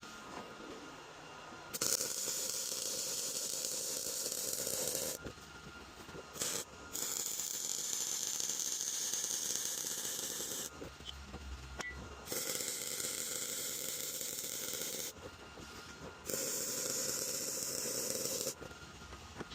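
MIG welder laying four short weld runs on steel, each a steady hissing crackle lasting two to four seconds, with short pauses between them.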